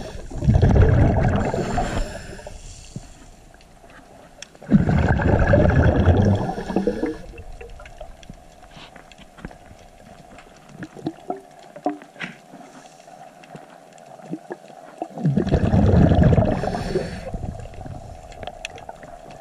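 Underwater: a scuba diver's exhaled regulator bubbles rumbling and gurgling in three bursts of about two seconds each. Faint scattered clicks and crackles sound between the bursts.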